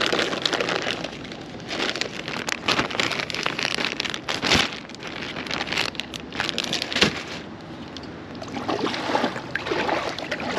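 Clear plastic zip-top storage bag crinkling and rustling as it is handled, its zip seal being pulled open, in irregular crackles.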